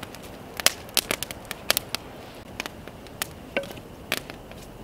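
Wood campfire crackling, with irregular sharp pops and snaps several times a second.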